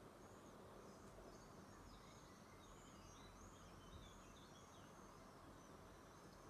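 Near silence: a low steady background hiss with faint bird chirps, a run of short high arching notes from about a second in until about five seconds in.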